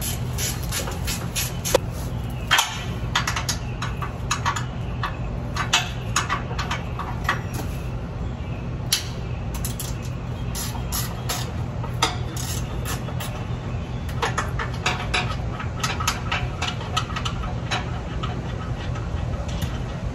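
A wrench clicking and clinking against metal as the mounting bolts of an air compressor's electric motor are broken loose, a run of short irregular clicks. Under it runs a steady low hum of an engine-like machine.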